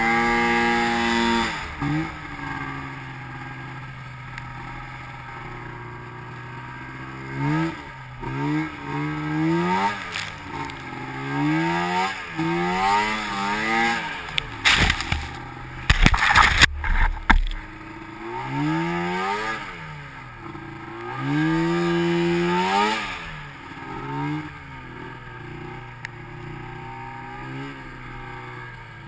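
2005 Arctic Cat M7 snowmobile's 700 twin-cylinder two-stroke, fitted with SLP twin pipes, revving up and down again and again as it pushes through deep powder, dropping back to a steady lower running note between throttle blips. A few loud thumps and rushes come about halfway through.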